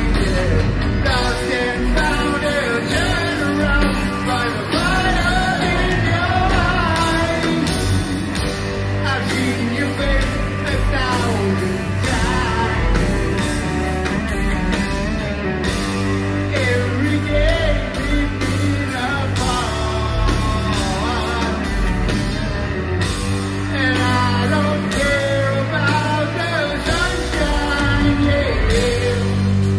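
Live rock band playing: the lead singer's voice carries the melody over drums, electric guitars, bass and keyboards.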